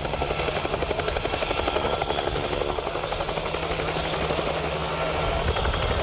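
Bell 47 piston-engined helicopter flying low: the rapid, even beat of its main rotor over a steady engine tone, growing slightly louder as it comes closer.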